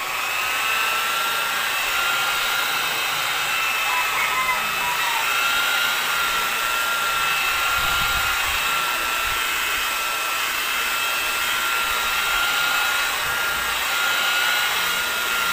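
Electric rotary polisher with a wool buffing pad running steadily with a whine, buffing rubbing compound into a truck's refinished paint.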